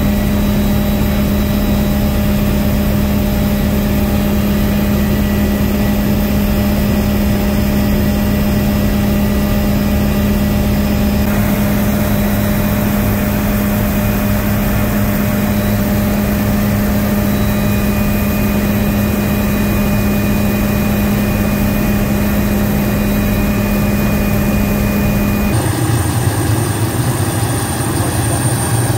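Helicopter engine and rotor running steadily in flight, heard from inside the cabin as a loud, even drone with a constant low tone. About 26 s in the sound changes abruptly to the helicopter running on the ground, heard from outside.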